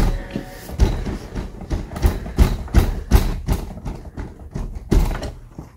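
A quick run of dull knocks, about two or three a second, stopping about five seconds in.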